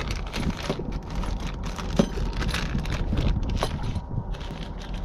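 Crinkling and rustling of a clear plastic parts bag and small parts being handled, in a run of short irregular crackles and clicks over a steady low rumble.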